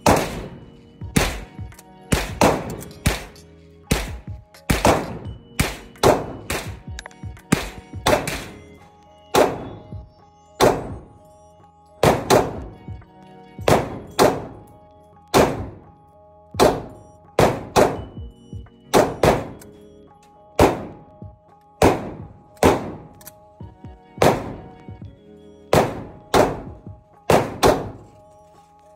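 Taurus GX4 Carry 9mm pistol firing repeated shots, about one to two a second and sometimes in quick pairs, each shot ringing briefly in an indoor range. Background music plays under the shots.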